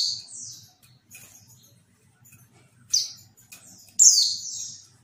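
Female pleci (white-eye) calling in high chirps that slide downward. A loud one comes right at the start, another about three seconds in, and a longer one at about four seconds, with faint short notes between.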